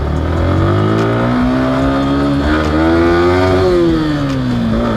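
Yamaha R15M's 155 cc single-cylinder engine accelerating from walking pace, its pitch rising for about three seconds, then falling as the throttle eases off near the end.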